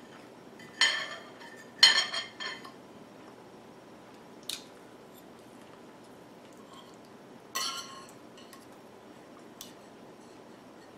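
Fork and knife clinking and scraping against a dinner plate as food is cut and picked up: a few sharp clinks, the loudest cluster about two seconds in, with quiet gaps between.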